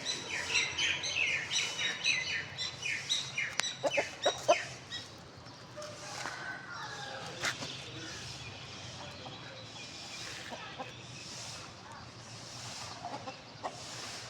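Birds calling, including chickens: a quick run of high chirps for the first five seconds, a few louder low clucks around four seconds in, then scattered quieter calls.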